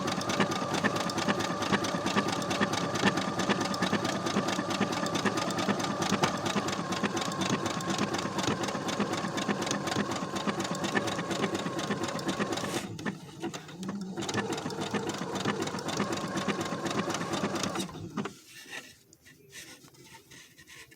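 Brother SQ9285 sewing machine running a zigzag embroidery stitch at speed: a rapid, even needle clatter over a steady motor whine. It stops briefly about two-thirds of the way through, starts again, and stops for good a few seconds before the end.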